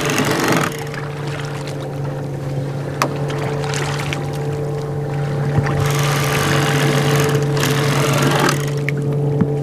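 Cordless electric fillet knife running with a steady motor hum as its blades saw through freshwater drum, with hissy rasping at the start and again from about halfway to near the end as the blades cut through flesh and rib bones.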